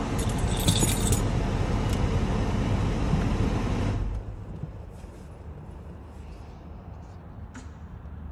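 Range Rover Sport running at idle, heard from the driver's seat with a steady engine and fan noise, and keys jingling briefly about half a second in. About four seconds in, the noise drops sharply to a much quieter low hum with a few faint clicks.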